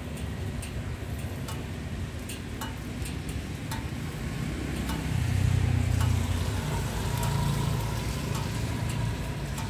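Rain falling on a wet street, with scattered sharp ticks of drops near the microphone, and a motorbike engine passing, its hum loudest about five to six seconds in.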